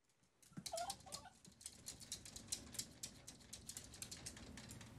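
A small dog's claws clicking and scratching quickly and irregularly on a hardwood floor and against a mirror as it paws at it, with a brief higher-pitched sound about a second in.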